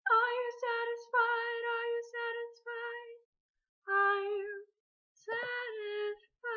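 A woman singing unaccompanied: a run of short notes, then after a pause two longer held notes.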